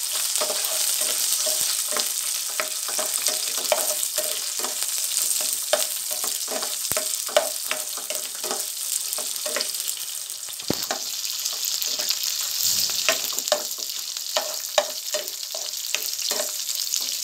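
Sliced red onion sizzling in hot oil with browned garlic and ginger in a nonstick frying pan, stirred with a plastic spoon that taps and scrapes against the pan about once or twice a second over a steady sizzle.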